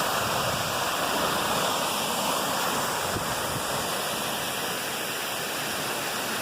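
Waterfall, water falling and rushing in a steady roar.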